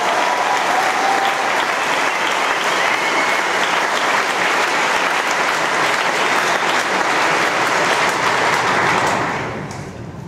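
Large audience applauding, dying away about nine and a half seconds in.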